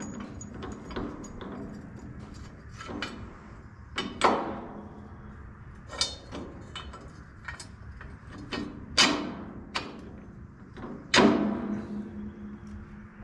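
Heavy metal parts knocking and clanking as they are handled and fitted back onto a Case 8840 windrower: irregular sharp hits, the loudest about 4, 9 and 11 seconds in, several leaving a brief metallic ring.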